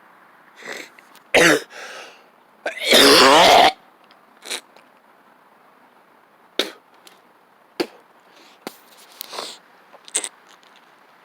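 A man coughing and clearing his throat after inhaling cannabis dabs, hacking from the harsh hits. There are a few coughs in the first seconds, with one long, loud coughing burst about three seconds in, then a few short quiet clicks.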